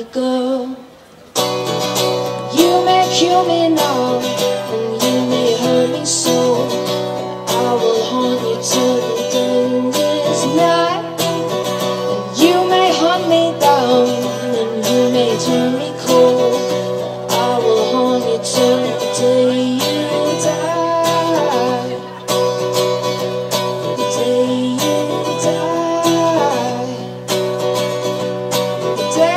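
A woman singing to her own strummed acoustic guitar in a live solo performance. After a brief drop about a second in, voice and guitar come back in together and carry on steadily.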